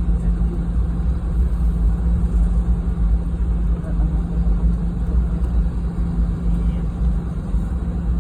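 Steady low rumble of a Boeing 717-200 heard inside the passenger cabin, with a constant hum from its rear-mounted Rolls-Royce BR715 jet engines and airframe.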